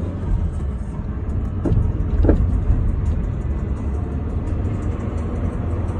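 Car cabin road noise while driving: a steady low rumble of tyres and engine, with two short louder sounds about two seconds in.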